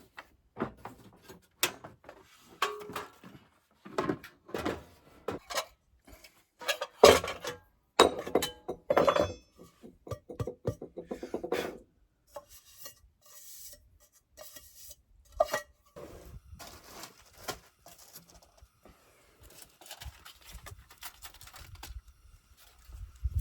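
Clatter of pots, dishes and utensils: irregular knocks and clinks, with a stretch of scraping near the middle, then quieter scattered clicks.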